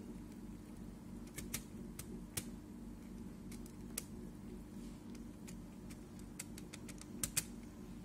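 About a dozen irregular sharp clicks of laptop keys being pressed, the loudest two close together near the end, over a steady low hum.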